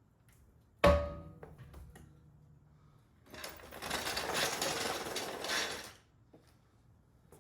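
A sharp metallic clank that rings briefly, then about three seconds of rough, rushing noise.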